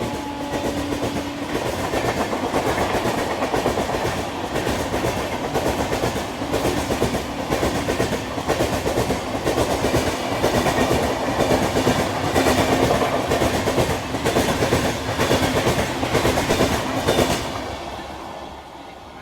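Indian Railways express train passing at speed, about 120 km/h: its horn sounds a steady note that stops about a second and a half in, then the coaches rush by with a rapid clickety-clack of wheels over rail joints, fading away near the end.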